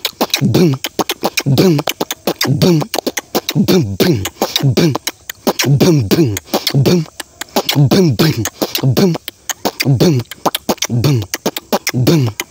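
A man vocally imitating a dholak with his mouth. A steady rhythm of low bass strokes that each slide down in pitch alternates with quick, sharp mouth clicks.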